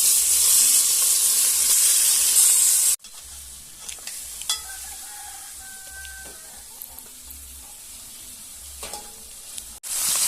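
Curry powder frying in hot oil in a pot, a loud steady sizzle. It cuts off abruptly about three seconds in to a much quieter stretch with a few faint clicks, and the sizzle cuts back in just before the end.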